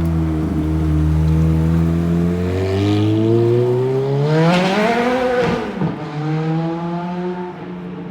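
Car engine accelerating hard, its pitch climbing for a couple of seconds about halfway through and then dropping sharply as it passes, after which it runs on steadily and fades.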